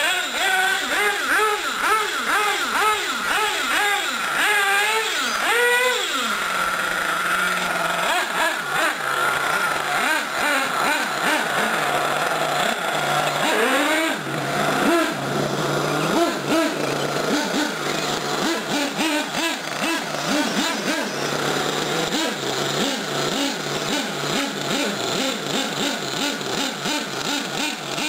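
Radio-controlled off-road cars running on a dirt track, their motors revving up and down in quick rises and falls for the first several seconds. After that comes a steady motor note with short repeated surges.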